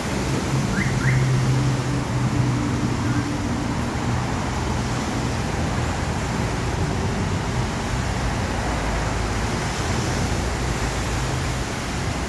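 MAN 450 truck's diesel engine idling steadily after a remote start.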